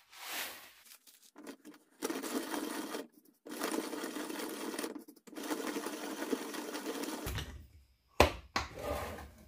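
Antique hand-cranked coffee grinder milling dehydrated corn kernels into corn meal. It starts with a short rattle of kernels poured into the hopper, then three stretches of gritty grinding, each one to two seconds long with short breaks between, and a couple of knocks near the end.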